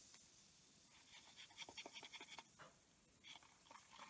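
Faint, irregular fizzing and crackling of a baking soda and water solution as a corroded battery part sits in it: the soda is reacting with and neutralizing the acid corrosion.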